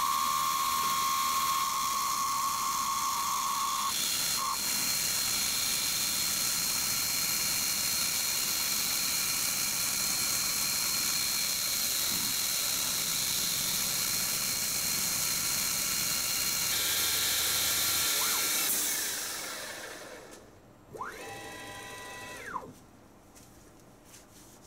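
CNC mill's spindle and 8 mm end mill cutting a slot in aluminum plate, with a steady hiss from the air-mist coolant sprayer. The sound fades out a few seconds before the end and is followed by a brief rubbing sound.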